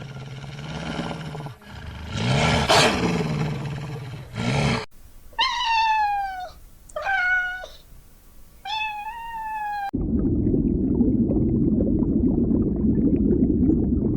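A domestic cat meowing three times, each meow sliding down in pitch, between other animal clips: low drawn-out animal calls come before it, and a steady low rumbling noise follows for the last few seconds.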